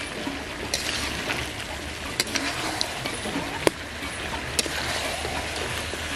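Duck meat and taro frying in a large metal pot, sizzling steadily, while a metal spatula stirs it, scraping and clinking sharply against the pot about five times.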